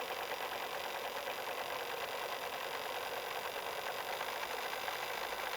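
A steady whirring, machine-like noise with a fine rapid flutter and faint high whine, even in level throughout.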